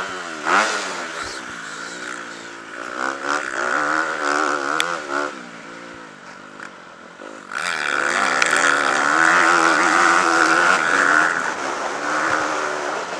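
Motocross bike engine heard close up from the bike being ridden, revving up and falling back over and over as the rider opens and closes the throttle and shifts. It eases off for a couple of seconds around the middle, then comes back loud on the throttle from about seven and a half seconds in.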